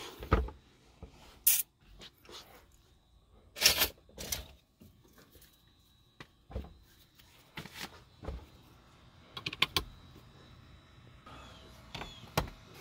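Handling noise: about ten irregular sharp clicks and knocks, the loudest near the start and about four seconds in.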